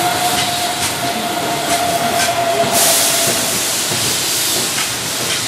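Keihan electric commuter train moving off along curved track: wheels clicking over rail joints with a steady whine that fades out partway through. A burst of hiss comes about three seconds in.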